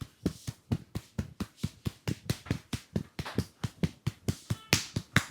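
A barber's hands striking a customer in quick, even percussive massage strokes, about five or six sharp slaps a second.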